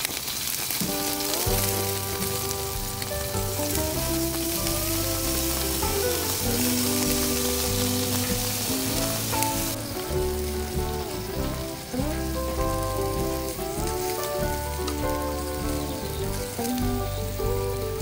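Yakitori skewers sizzling on a tabletop butane grill, the hiss louder for about the first ten seconds and softer after. Background music with a melody over a stepped bass line plays along.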